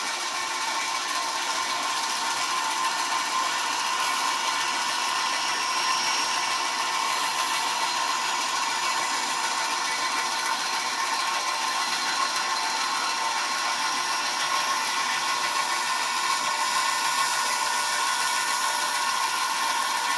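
Bandsaw with a half-inch, 4-tooth skip-tooth blade running steadily and cutting through a piece of poplar, slightly louder as the blade enters the wood.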